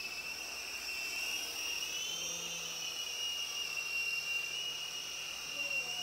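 Sky Rover Vigilante toy RC helicopter in flight: its small electric motors and rotors whine steadily at a high pitch, which rises and falls slightly as the throttle changes.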